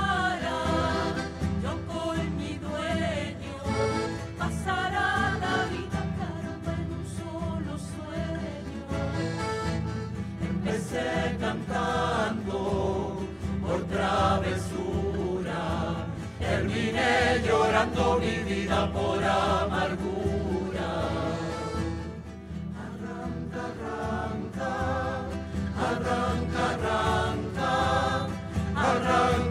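A traditional Chilote folk song played live: a group of women and men singing together, accompanied by acoustic guitars and accordion.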